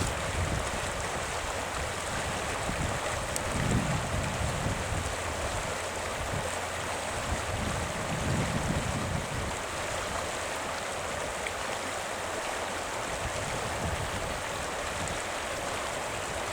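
The upper Arkansas River flowing: a steady, even rush of running water, with a few soft low rumbles underneath.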